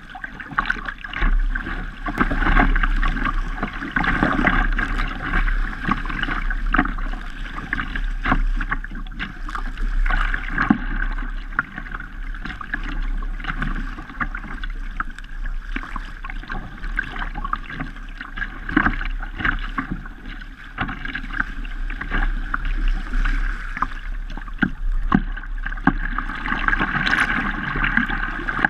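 Choppy water splashing and slapping against the bow of a kayak under way, in irregular bursts, with a steady wind rumble on the microphone.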